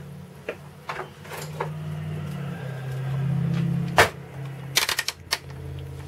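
Sharp clicks and knocks from a multimeter and its test leads being handled on a workbench during a bench test of a microwave relay, over a low steady hum. One louder knock comes about four seconds in, followed by a quick cluster of clicks.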